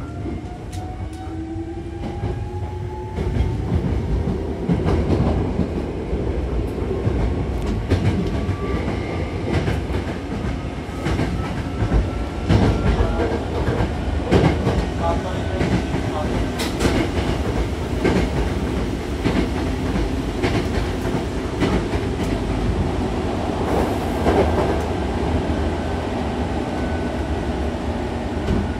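Hankyu commuter train running between stations, heard from inside the passenger car. Its motor whine rises in pitch over the first few seconds as the train picks up speed, under a steady rumble. Repeated sharp clacks come from the wheels passing over rail joints.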